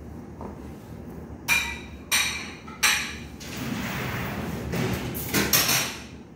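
Metal kitchenware clanking: three sharp, ringing clanks over a second or so, then a stretch of scraping and clatter with a few more knocks near the end.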